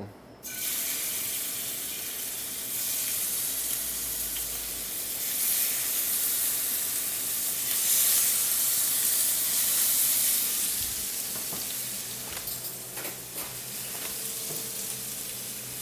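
Marinated chicken breasts sizzling as they sear in hot olive oil in a heavy-bottomed stainless steel pan; the sizzle starts suddenly about half a second in as the meat goes into the pan and stays steady. A few light knocks come about two-thirds of the way through.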